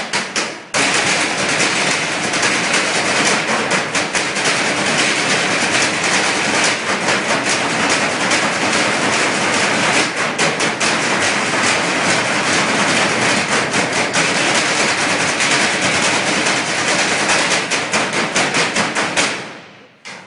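Galvanized metal trash cans and a large plastic barrel beaten with drumsticks by a percussion ensemble. A few sharp strikes and a short break give way to a long stretch of fast, dense drumming, which stops just before the end as the routine finishes.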